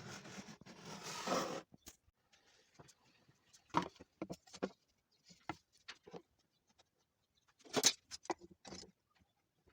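Handling noises with no saw running: a scraping slide in the first second and a half, then scattered knocks and taps, the loudest about four seconds in and a cluster near eight seconds.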